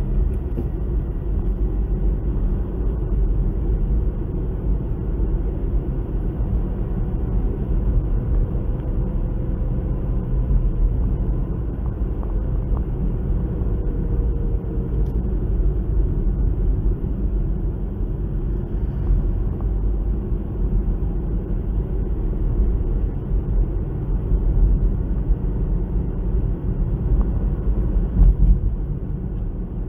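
Toyota Vios cruising at town speed, heard from inside the cabin: a steady low hum of engine and tyre noise at light revs.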